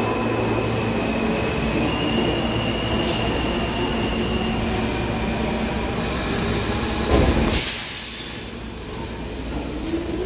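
New York City subway R160A-2 train running on the rails: a steady rumble with a high electric motor whine that steps up in pitch about a second and a half in. A short, loud rush comes about seven seconds in, and the sound falls away after it.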